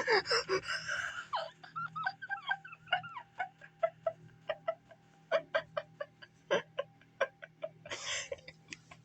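A person laughing hard and breathily in short irregular bursts, with some higher-pitched squeals early on giving way to gasping pulses.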